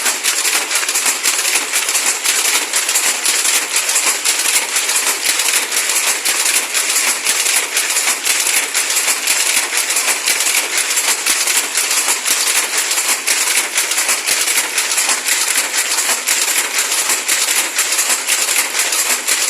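Weaving loom running, a steady rapid clatter of clacking strokes.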